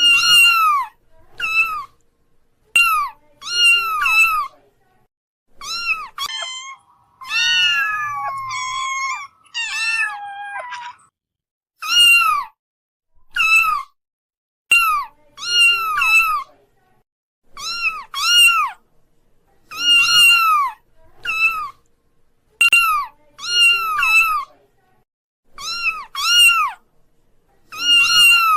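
Kitten mewing: repeated short, high-pitched mews, often two or three close together, with a longer, lower, drawn-out mew around the middle.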